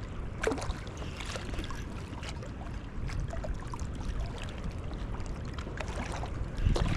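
Flowing river water and a low rumble of wind on the microphone, with scattered small clicks and rustles.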